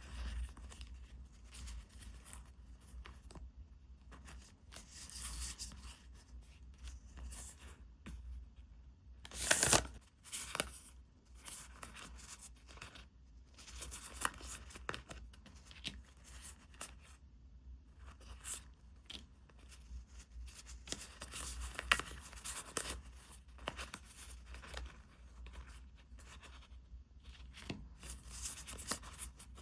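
Packaging being torn open and handled: irregular tearing and rustling with scattered clicks, loudest in a sharp rip about ten seconds in.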